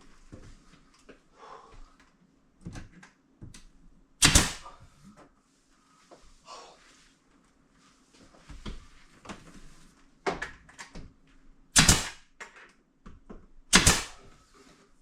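Hammer blows on a nail into timber around a door frame: three loud sharp strikes, one about four seconds in and two near the end, among scattered lighter taps and handling knocks.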